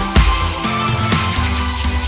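Background music with a steady beat, about two beats a second, and sustained chords. The beat eases off after the first half second.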